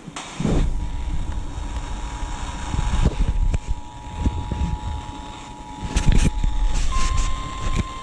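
A steady single tone near 1 kHz, the NOAA Weather Radio 1050 Hz warning alarm tone, comes in about half a second in and steps slightly higher near the end. It sits under louder low rumbling and a few sharp knocks.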